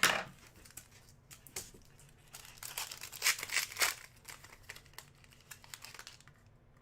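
Trading card pack wrapper crinkling and tearing as a hockey card pack is ripped open and handled, in irregular rustling crackles that are busiest in the middle and die down near the end.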